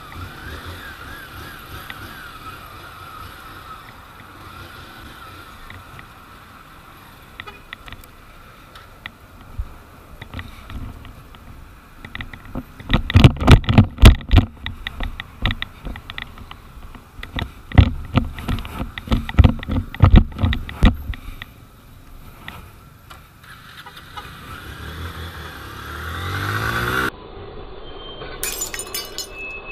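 Motorcycle running under wind noise, then from about thirteen seconds in a run of loud crashing and crunching impacts lasting about eight seconds as a heavy tanker truck goes off the road edge against a wall. A rising engine sound follows, then a cut to traffic.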